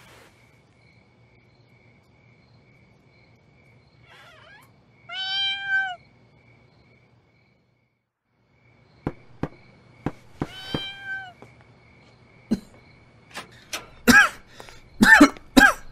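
A cat meowing, one drawn-out meow about five seconds in and another about ten seconds in, over a faint steady pulsing trill. From about nine seconds in come sharp clicks and knocks, growing louder and closer together near the end, with more short cat calls among them.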